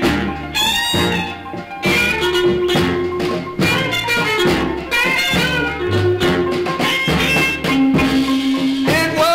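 Instrumental passage of a 1960 Chicago electric blues record played from a 45 rpm single: lead electric guitar with bending notes over long held horn chords, bass and drums.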